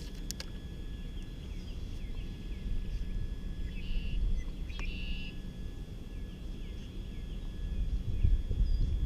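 Outdoor ambience: a steady low rumble with a thin high-pitched whine, and scattered small bird chirps. Two brief, louder calls come about four and five seconds in.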